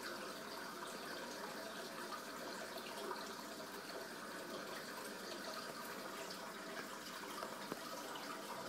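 Aquarium water running steadily, a faint even rush of moving water from the tank's filtration, with a few small ticks.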